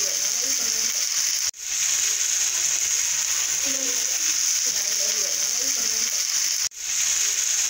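Steady frying sizzle with crackle, a repeating loop that cuts out for an instant about a second and a half in and again near the end.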